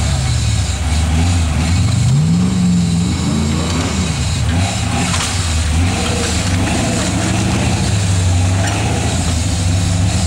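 Engine of a caged off-road SUV revving up and down as it crawls through a muddy rut, the revs rising about two seconds in and dropping back a second or two later before running steadier.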